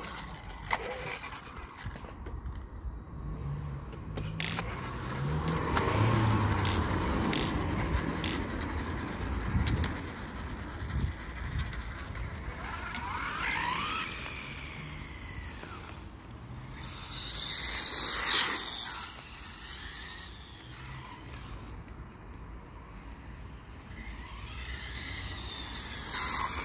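Electric motor of a WLtoys A959-B RC car whining up and down in pitch as it speeds up and slows during a test run, over steady tyre noise on a rough, uneven surface, with a few sharp clicks near the start. The car is running with its steering gyro gain turned low.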